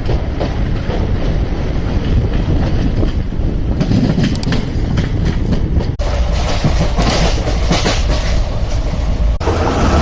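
Indian Railways train running over the track: a continuous heavy rumble with frequent sharp clicks of wheels over the rail. The sound changes abruptly about six seconds in and again near the end, where separate recordings are joined.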